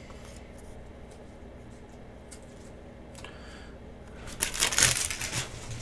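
Trading cards sliding and rubbing against each other as a small stack is handled, with a few faint ticks and then a louder papery rustle lasting about a second near the end.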